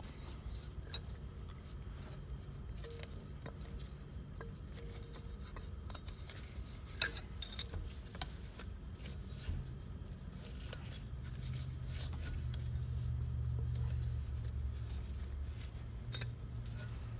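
Scattered light clicks and clinks, a few sharp ones standing out, over a steady low hum that grows louder for a few seconds past the middle.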